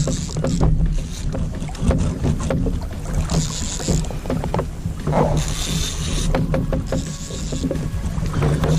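Sounds aboard a fishing kayak at sea: water sloshing and splashing against the hull in several short hissy spells, with scattered knocks and clicks of handling on the deck over a steady low rumble.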